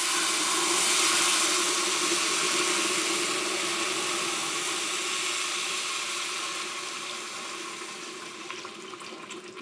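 Chicken stock being poured into a very hot stainless stockpot of toasted long-grain rice, boiling up at once and bubbling and splattering as it flashes to steam. The noise starts at full strength and fades gradually as the pot cools.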